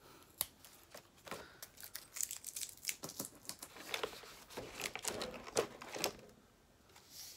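Paper and plastic packaging of a stationery kit crinkling and rustling as it is handled, with scattered sharp little clicks; it stops about six seconds in.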